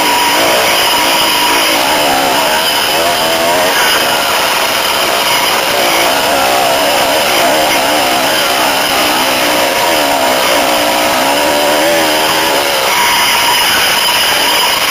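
Dirt bike engine running hard on a trail ride, its pitch rising and falling over and over as the throttle is opened and closed, over a steady rush of noise.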